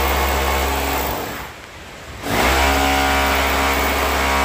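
Electric chipping hammer (power chisel) hammering into a brick wall. It stops for about a second in the middle, then starts up again.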